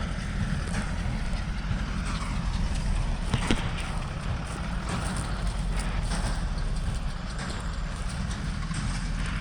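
Tractor running steadily while pulling a small old square baler, with a low rumble and a sharp knock about three and a half seconds in.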